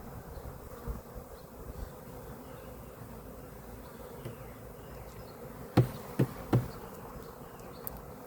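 Mass of Carniolan honeybees from a package buzzing steadily, with three sharp knocks in quick succession a little past halfway.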